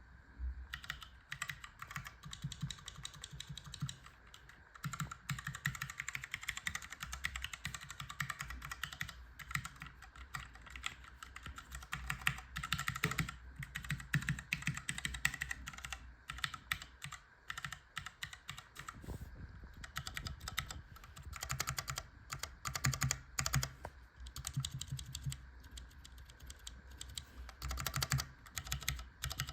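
Cherry MX Clear tactile mechanical key switch in a steel-plated, bamboo-cased keyboard, pressed and released over and over in quick succession, giving a dense run of sharp clicks with a few brief pauses.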